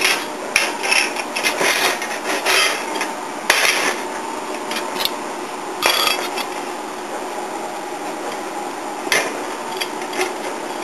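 Pieces of scrap sheet steel clanking and scraping against each other as they are handled. There are a few sharp irregular knocks over continuous rustling noise.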